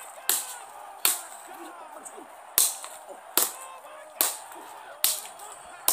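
A run of sharp punch smacks, about seven, roughly one every second with a longer pause near two seconds in, as bare fists hit a wooden post.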